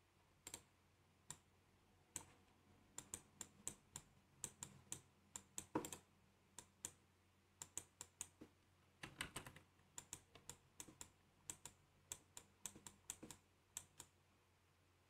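Faint, irregular clicking of a computer mouse and keyboard, a few clicks a second, stopping shortly before the end.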